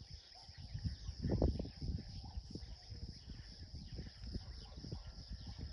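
Outdoor rural ambience: a steady, high-pitched drone of insects, with an uneven low rumbling underneath that is strongest about a second and a half in.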